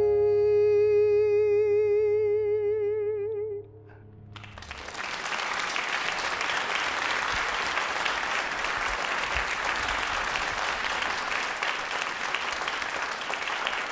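A male singer holds the final note of the song with widening vibrato over a sustained piano chord, cutting off about three and a half seconds in. After a short pause the audience applauds, and the applause carries on to the end.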